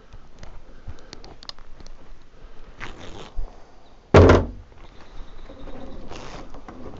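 A single heavy thunk about four seconds in, amid small clicks and rustling handling noises.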